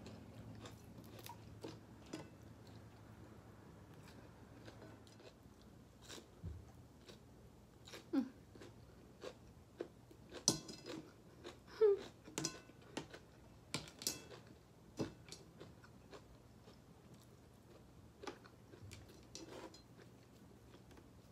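A person chewing food close to the microphone: quiet chewing with scattered wet lip smacks and mouth clicks, coming thickest and loudest in the middle.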